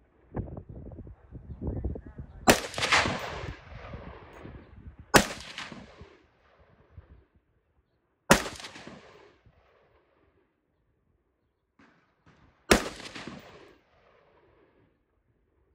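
Four single gunshots a few seconds apart, each trailing off in an echo off the canyon walls.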